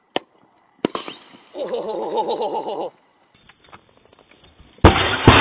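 A brand-new 4-cell 14.8 V, 5200 mAh lithium polymer battery bursting inside a fireproof LiPo safe bag: a sudden loud bang near the end, a second sharp crack about half a second later, then a rushing hiss as it vents.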